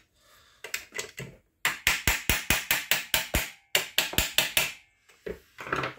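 A screwdriver tapping on a pin in an airsoft M16A1's lower receiver to drive it out: a quick run of about ten sharp metal taps, a short pause, then about five more.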